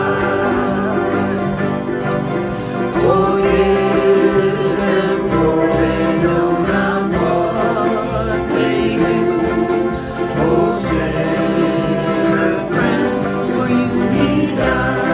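A small group of voices singing a worship song together to strummed acoustic guitars and a ukulele.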